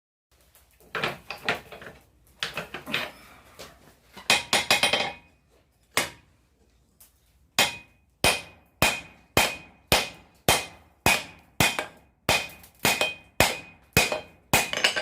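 Hand hammer striking hot steel on an anvil, forging a blank, each blow followed by a short metallic ring. The first few seconds hold quick, uneven clusters of blows, then a single heavier strike, then a steady rhythm of about two blows a second.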